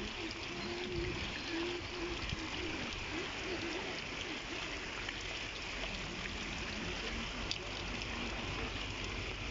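Heavy rain pouring steadily onto a muddy, waterlogged street: a constant hiss of rain with a few sharp drop ticks close by.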